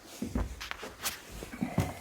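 Footsteps and shuffling, with several sharp clicks and light knocks.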